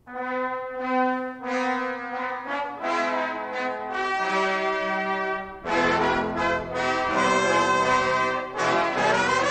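Brass-led instrumental music: held notes starting suddenly, growing fuller about halfway through, with a rising swoop near the end.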